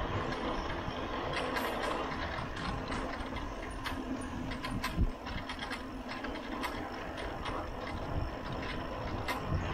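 Mountain bike coasting fast downhill on concrete, its rear freehub ratcheting in a steady stream of fine clicks over the rumble of tyres and wind. There is a sharp jolt about five seconds in.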